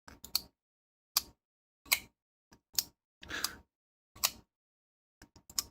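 Spyderco Para Military 2 folding knife being worked open and closed, its blade and compression lock making sharp clicks, roughly one a second with a quick cluster near the end.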